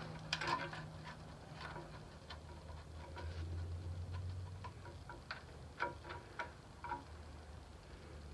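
Faint, irregular small metallic clicks and ticks of hand tools working a VW Beetle's valve adjuster, a screwdriver on the adjusting screw and a wrench on the locknut, over a faint low hum.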